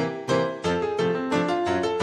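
Piano music accompanying the film: a tune of struck notes and chords in a steady beat, about three strikes a second.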